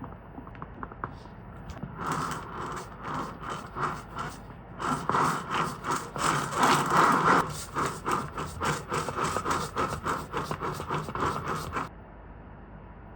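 A kitchen utensil scraping in quick rhythmic strokes, as in hand-mixing in a bowl. It starts about two seconds in at about three strokes a second, gets faster and louder a few seconds later, and stops near the end.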